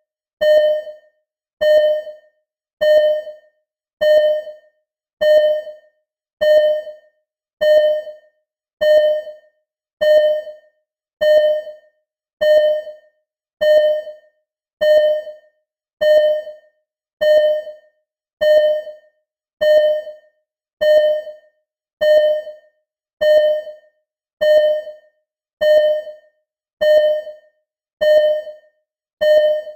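Simulated hospital ECG heart monitor beeping at a steady, even pace, a little faster than one beep a second. Each beep is a short, clear tone that fades quickly.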